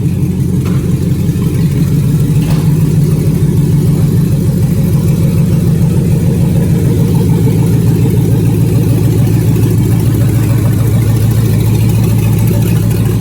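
Race truck's engine running steadily, loud and even, with a low pulsing note.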